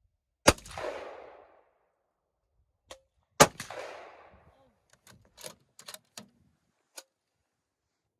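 Two rifle shots from a scoped precision rifle fired off a bipod, about three seconds apart, each followed by a short echoing tail. A run of lighter sharp clicks follows.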